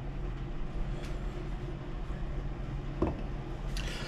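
Steady low hum of room noise, with a light tap about three seconds in.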